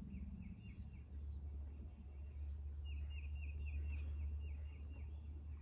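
Outdoor backyard ambience: a low rumble of wind on the microphone, with birds calling. About half a second in, and again a second later, comes a high falling whistle, and from about three seconds in a bird repeats a short chirp about four times a second for two seconds.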